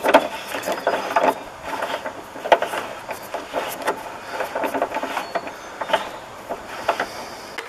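Socket ratchet clicking in irregular short runs as a loose nut holding the headlight assembly is backed off through a socket on a long extension.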